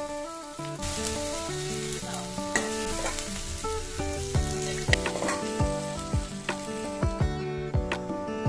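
Khichuri sizzling in an aluminium pot as a metal spoon stirs it, with sharp clicks of the spoon against the pot, more often in the second half. Background music with a melody plays over it.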